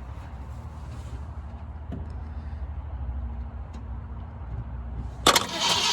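A 1968 Ford Torino engine being cranked over on the starter to test whether the fuel pump is delivering fuel: a steady low rumble. Near the end a sudden loud hiss cuts in.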